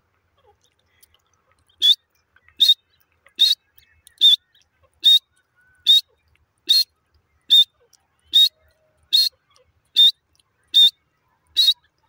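Grey francolin calling: a run of thirteen short, sharp, high notes, evenly spaced about one every 0.8 seconds, starting about two seconds in.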